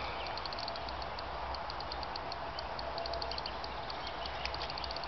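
Fishing reel clicking in quick, irregular runs of ticks as line is pulled from it during a run by a hooked carp.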